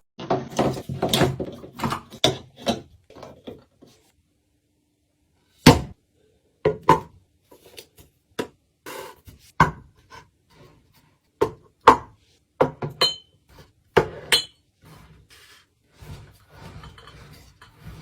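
Containers and jars being handled and set down while restocking a fridge: a string of separate knocks and clicks, with a couple of short ringing clinks near the end and a brief silence about four seconds in.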